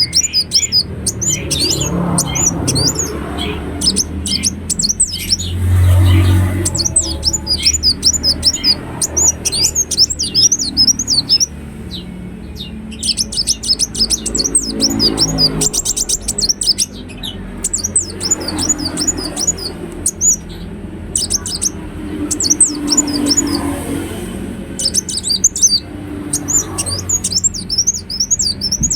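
Ruby-cheeked sunbird singing: long runs of rapid, high-pitched chirps and twittering notes with brief pauses between runs, over a low background rumble.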